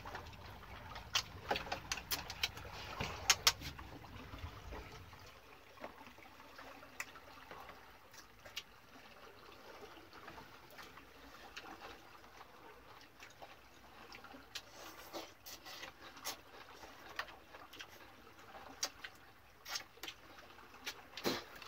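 Eating with chopsticks from porcelain bowls and metal pots: scattered small clicks and taps of the chopsticks against the dishes, busiest in the first few seconds. A low hum underneath stops about five seconds in.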